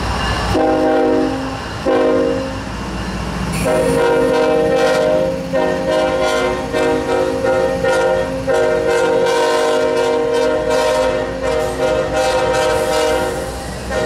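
Diesel freight locomotive's air horn blown in a long horn show: held blasts broken by brief gaps, turning to a run of short toots in the second half, over the low rumble of the locomotive pulling away close by.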